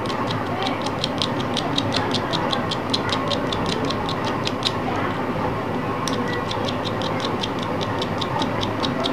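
Rapid, even ticking at about five ticks a second, pausing for about a second midway, over a steady hum.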